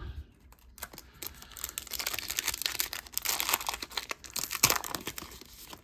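Wrapper of a Panini Prizm Draft Picks football card pack crinkling and tearing as it is opened by hand: a dense crackle that starts about a second in and fades near the end.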